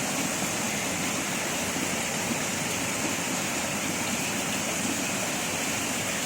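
Steady rain falling, an even unbroken hiss with no distinct drops.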